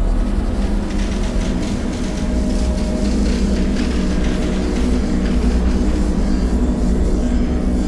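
Dark cinematic sound-design ambience: a dense, low rumbling drone layered with steady tones, with a stretch of crackling, rattling texture over it from about a second in until about five seconds in.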